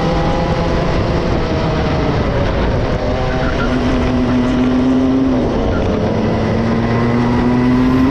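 Two-stroke racing kart engine running at high revs. The revs ease off and dip briefly about five and a half seconds in, then climb steadily again as the kart accelerates.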